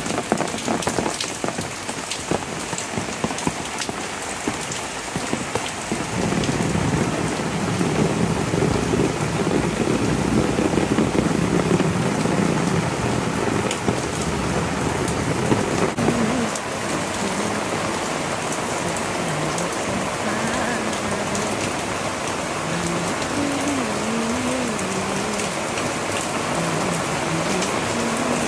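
Heavy monsoon rain pouring down on banana, papaya and other garden foliage, a steady hiss of drops on leaves. It grows louder and heavier for about ten seconds in the middle. A faint, low wavering tone comes through the rain in the second half.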